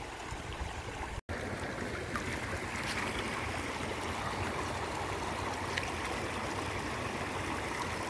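Shallow stream running over a stony bed: a steady rushing of water, cut off for an instant about a second in.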